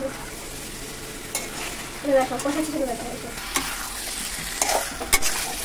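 Meat being sautéed in a steel karahi over a gas flame: steady sizzling as a metal spatula stirs it, with several sharp clicks of the spatula against the pan, most of them in the second half.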